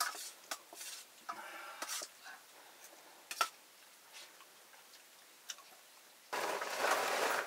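A spoon clinking and scraping against a metal plate during a meal: scattered light clicks, one sharper about three and a half seconds in. Near the end comes a louder rustling noise lasting about a second.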